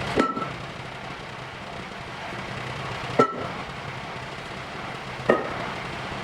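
Three metal impacts, hammer blows on steel, each with a short metallic ring: the first near the start, then about three seconds and two seconds apart. A steady machine hum runs underneath.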